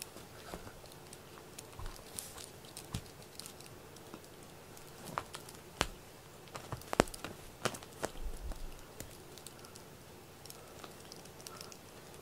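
A cat playing with a string cat-teaser toy: soft scattered rustles and small clicks as it pounces on, paws and bites at the toy on a blanket, with a few sharper clicks around the middle.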